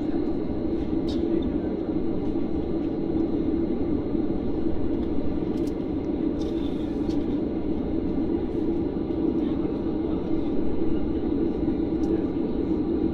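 Steady low drone of an airliner's cabin during wing deicing, unchanging throughout, with a few faint clicks.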